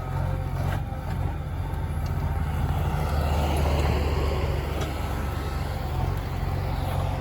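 A vehicle engine running steadily with a low drone, growing louder around the middle.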